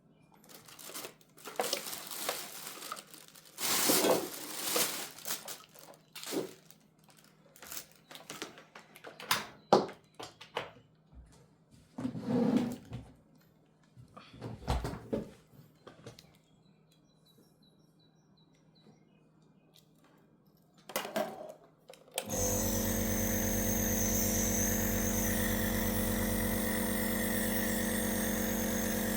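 Plastic clicks and rustling as a compressor nebulizer is put together and filled with Pulmicort. About 22 seconds in, its compressor switches on and runs with a steady, even hum.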